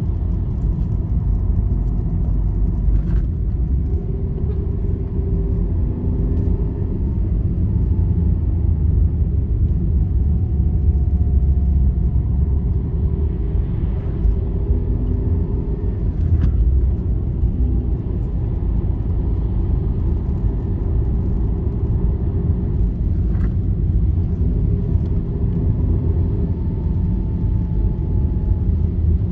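Road vehicle travelling on a highway, heard from inside: a steady deep rumble of engine and tyres, with faint wavering whines and a few light rattles or clicks, about three seconds in, midway and near the end.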